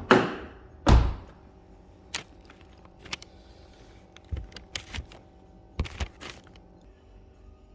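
Car door of a Ford S-Max being shut: two heavy thuds in the first second, then several lighter clicks and knocks of the door and its handle.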